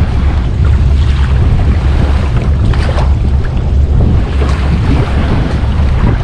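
Strong wind buffeting the microphone in a steady low rumble, with surf washing on the beach behind it.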